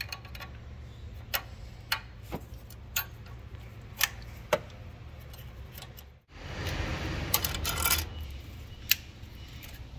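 Sharp metallic clicks and clinks of a spanner working on the fuel-line union nuts of a diesel engine, spaced about half a second to a second apart, over a low steady hum. About six seconds in the sound breaks off briefly, then a louder stretch of handling noise with clinks follows.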